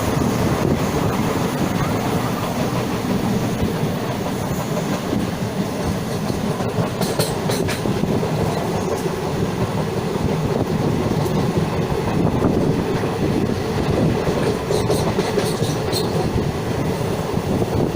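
Passenger train running along the track, heard from on board: a steady rumble of wheels on rails, with a few sharp clicks about seven and fifteen seconds in.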